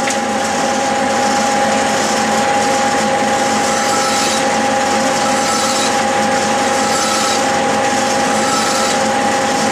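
A metal lathe running with a steady gear-and-motor whine while a flat hand file is drawn across a spinning steel shaft. The file gives a short rasp roughly once a second, one rasp for each forward cutting stroke.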